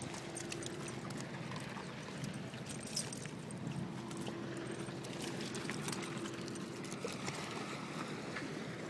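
Steady outdoor hum with a faint constant tone, with scattered light clicks and crunches of footsteps on a beach of stones and shells.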